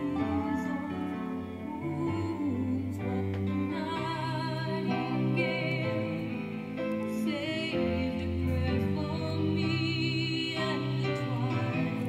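A woman singing with vibrato, holding long notes over instrumental backing.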